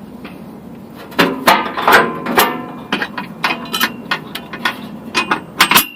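Steel trailer hitch and its bolts clanking and knocking against the Jeep's frame as the hitch is worked into position: an irregular run of sharp metallic knocks with short ringing, coming faster near the end.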